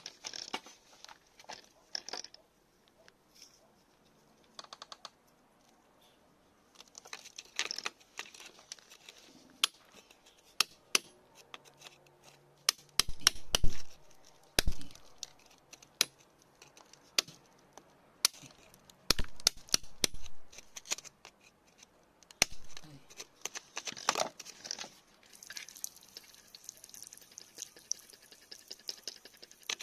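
Irregular sharp clicks and knocks with stretches of scraping and rustling, from digging and handling stones in soil.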